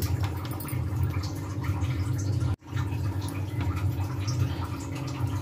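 Potato curry gravy simmering in a covered stainless-steel pot: soft bubbling and popping over a steady low hum.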